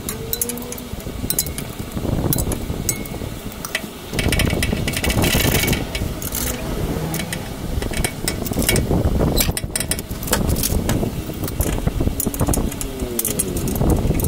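Scattered sharp metallic clicks and clinks of hand tools on the gearbox mounting bolts under the vehicle, over a steady rumbling background that swells a couple of times.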